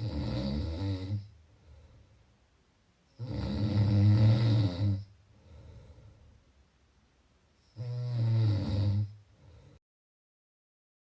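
Snoring: three long snores about four seconds apart, each a second or two long and followed by a softer breath. Near the end the sound drops out to dead silence for about a second, and another snore starts just as it ends.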